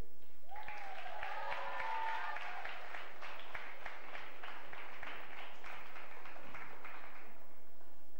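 Audience applauding, a dense patter of many hands clapping that starts about half a second in and dies away near the end. A voice calls out over the first couple of seconds of the clapping.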